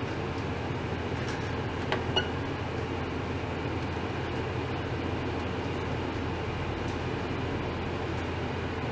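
Steady low hum and hiss, like machinery running, with two faint clicks about two seconds in.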